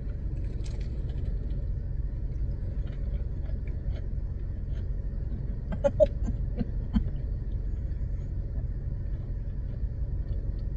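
Steady low rumble inside a car, with a few faint chewing and mouth sounds about six to seven seconds in.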